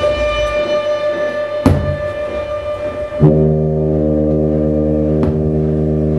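Free-improvised experimental ensemble music. A held high tone is cut by sharp knocks. About three seconds in, a loud, low, steady organ-like drone with many overtones starts suddenly and holds, with one more knock near the end.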